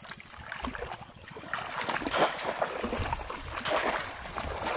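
Shallow water splashing and sloshing in irregular bursts, getting louder about a second and a half in.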